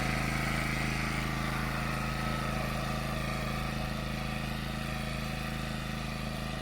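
WEN GN400i inverter generator running steadily under load from an air conditioner and a battery charger of about 1,000 watts. Its even engine hum slowly grows fainter as the listener backs away from it.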